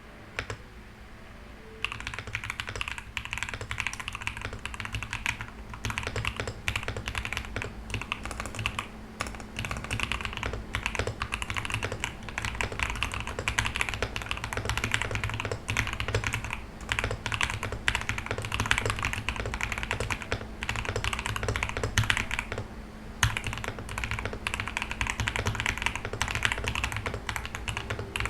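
Typing on a Sugar 65 aluminum-case 65% mechanical keyboard with Akko V3 Pro Cream Black switches on an FR4 plate, with PE foam and case foam: a fast, steady run of keystrokes starting about two seconds in, with one short pause about three quarters of the way through, over a faint steady low hum.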